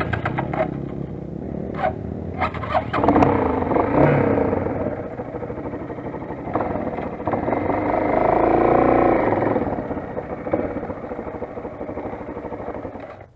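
Motoland XR 250 enduro motorcycle's single-cylinder four-stroke engine running as the bike rides off on a dirt track. There are a few sharp clacks in the first three seconds, and the engine grows louder for a stretch around eight to nine seconds in as it picks up revs.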